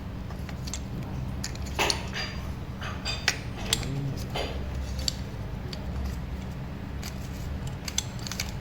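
Light metallic clicks and clinks from hand work on a scooter's suspension, with two short hissing bursts about two and four and a half seconds in, over a steady low hum.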